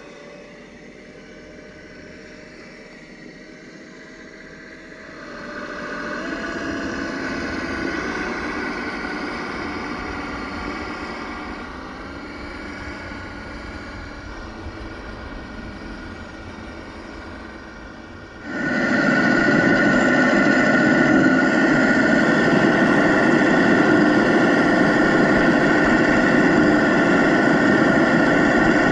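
Simulated truck engine from a Sense Innovations ESS Dual Plus sound unit, played through the speakers on a Traxxas TRX4 RC crawler. Faint at first with its pitch rising in small steps, it grows louder about five seconds in and jumps suddenly much louder and closer about eighteen seconds in.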